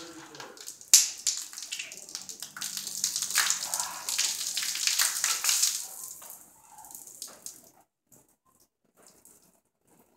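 Faygo soda fizzing and splashing out of a plastic bottle, with a sharp snap about a second in and a spattering hiss that fades out after about six seconds.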